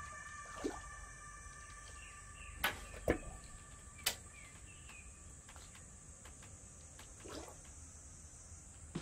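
Faint sounds of a hooked fish being played to a landing net on still water: a few sharp knocks and small splashes from the rod, net and fish, over a quiet background with a steady faint high tone.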